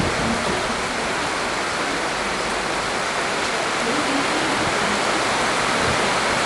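Heavy rain pouring down, a steady hiss.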